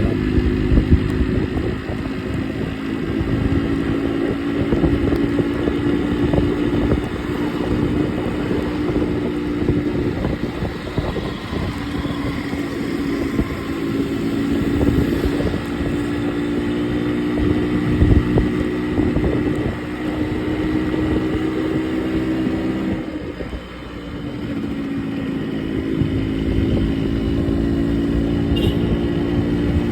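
Yamaha RX100's single-cylinder two-stroke engine running with a steady exhaust note, easing off briefly a little over twenty seconds in, then picking up again.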